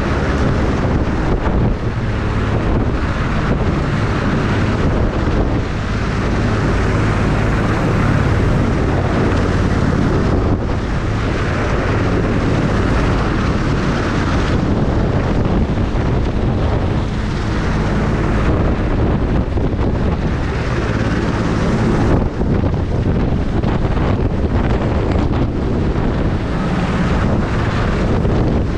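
Helicopter running overhead: a steady low rotor and engine hum under heavy rotor downwash buffeting the microphone.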